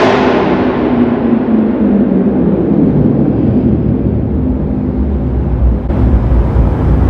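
Dodge Charger Scat Pack's 392 HEMI V8 with a muffler delete, the exhaust dropping back from a rev in the first second to a steady low idle. It grows a little louder again about six seconds in, under a parking structure.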